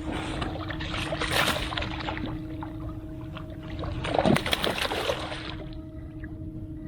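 Water splashing and sloshing at the side of a kayak in two bursts, the second about four seconds in, over a steady low hum.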